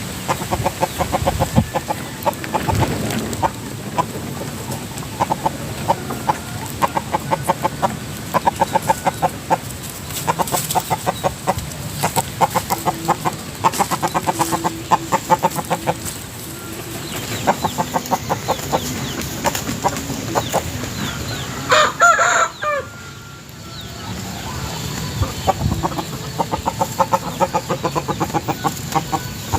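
Gà nòi rooster clucking in repeated rapid runs of short pulses. About two-thirds of the way through it gives one brief, loud call.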